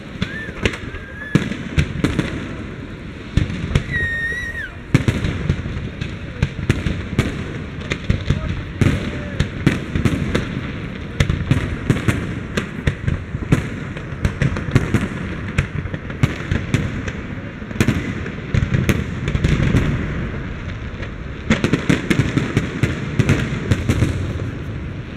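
Aerial fireworks display: a dense, continuous run of shell bursts and crackling bangs, with two short whistles about half a second and four seconds in.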